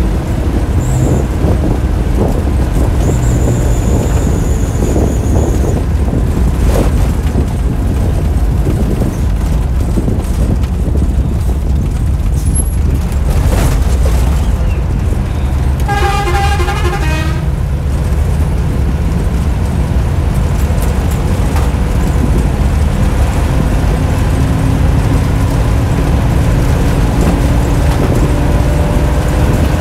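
Bus engine running steadily under way, with road and cab noise, heard from inside the driver's cab. About sixteen seconds in, a horn sounds once with a wavering tone for about a second and a half.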